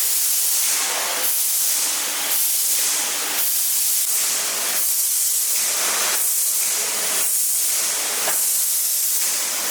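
Loud, steady hiss of a pressurized jet, strongest in the high frequencies, swelling and fading roughly once a second.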